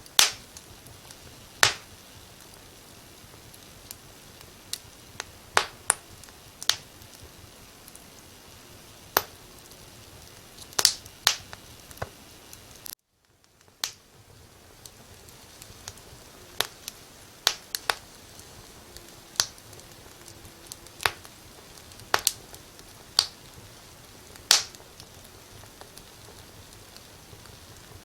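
Wood fire crackling: sharp, irregular pops every second or two over a low steady hiss. The hiss drops out briefly about halfway through.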